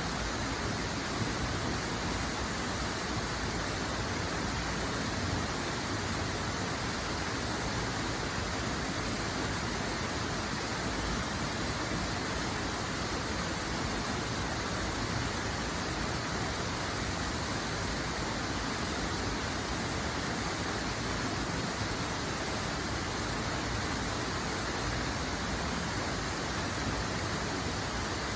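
Flowing water rushing steadily, an even hiss with no breaks or separate splashes.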